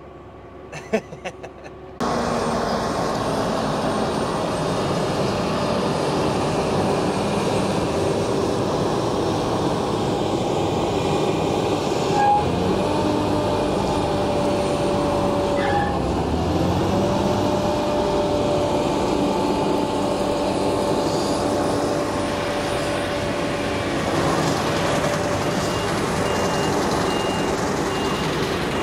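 Claas Lexion 730 combine harvester running and driving past, a steady engine drone that starts suddenly about two seconds in. A few short, evenly spaced electronic beeps sound near the end.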